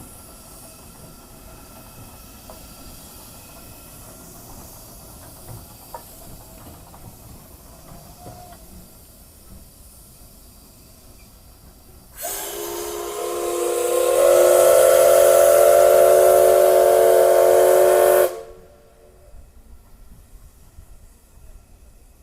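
Steam hissing faintly, then about twelve seconds in the C62 2 steam locomotive's whistle blows one long, loud blast of about six seconds that swells in strength and cuts off sharply.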